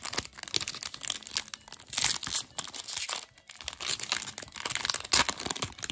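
Foil wrapper of a Japanese Pokémon Infinity Zone booster pack crinkling as it is handled and torn open, louder about two seconds in and again near the end.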